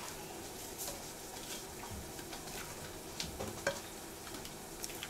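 Silicone spatula scraping thick poppy-seed batter out of a glass bowl into a glass baking dish: faint soft scrapes and light clicks against the glass, a few sharper ones after about three seconds, over a low steady hum.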